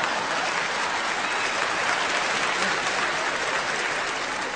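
Concert audience applauding steadily, easing off slightly near the end.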